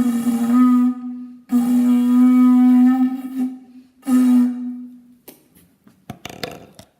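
A person making a steady, breathy pitched noise with the mouth, like a flute, held for three long notes. A few sharp clicks and knocks follow near the end.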